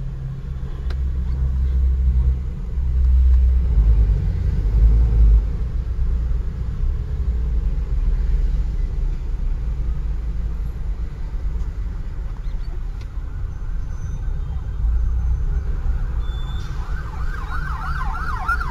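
Low engine and road rumble inside the cab of a work truck crawling through heavy traffic, swelling a little in the first few seconds. Near the end an emergency siren with a fast up-and-down warble starts up and keeps going.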